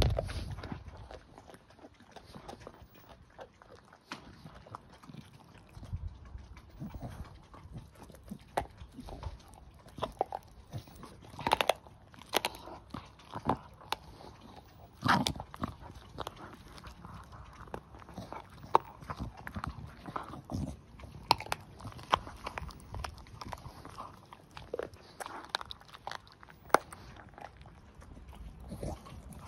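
Staffordshire bull terrier chewing and gnawing a raw pork trotter: irregular bites and crunches, with a few louder crunches along the way.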